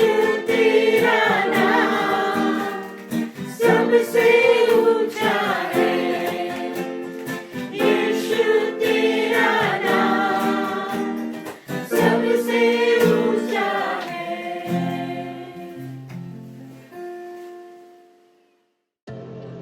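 A worship song: several voices singing together in phrases over an instrumental accompaniment. The singing ends about three-quarters of the way through, the last notes fade to a moment of silence, and softer music begins right at the end.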